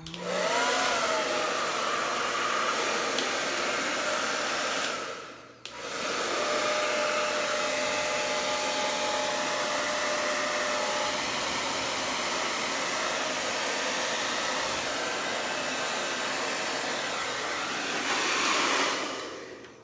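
Handheld blow dryer blowing air onto wet paint to spread it across a canvas, with a brief wavering whine as it starts. It cuts out for about a second around five seconds in, then runs steadily again and dies away just before the end.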